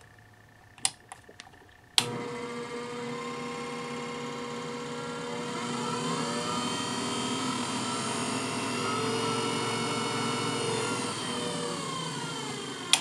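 Facetron faceting machine's lap motor switched on with a click, running on its newly fitted electronic speed control with a steady whine that rises in pitch as the speed knob is turned up and later falls as it is turned down. It clicks off near the end and begins to run down.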